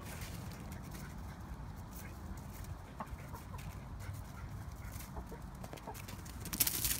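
Hen clucking a few short times, starting about three seconds in, over a steady low rumble. A brief loud rustling burst near the end is the loudest sound.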